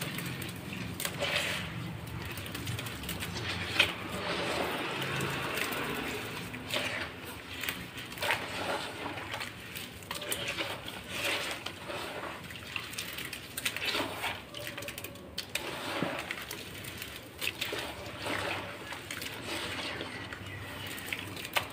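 Hands squeezing and crushing soaked clumps of dirt in a plastic basin of muddy water: irregular squelching, sloshing and splashing, with a sharp click about four seconds in.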